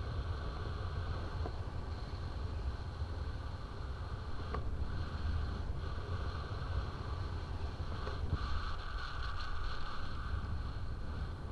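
Wind noise from the airflow of a paraglider in flight buffeting the camera microphone: a steady low rumble with a hiss above it.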